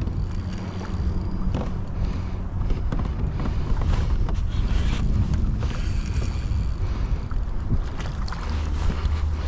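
Wind rumbling on the microphone over water sloshing against a small boat's hull, with scattered small knocks and clicks.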